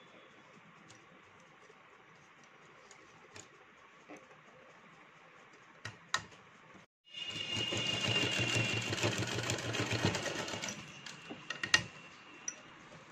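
Sewing machine stitching through gathered fabric, running in one stretch of about four seconds with a fast needle clatter. It starts about halfway through. Before it there are only a few small handling clicks, and a single sharp click comes near the end.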